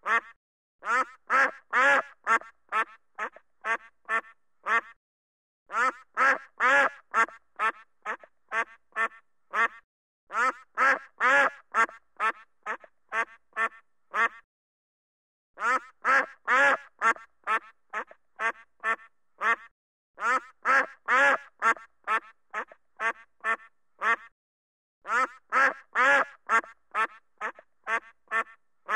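Duck quacking in bursts of about eight to ten quick quacks. Each burst starts loud and fades, with short pauses between the bursts.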